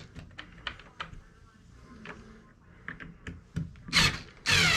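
Irregular light clicks and taps of small plastic and metal RC truck parts and screws being handled. Near the end a power screwdriver whirs in short spurts, its pitch dropping as it drives a screw home.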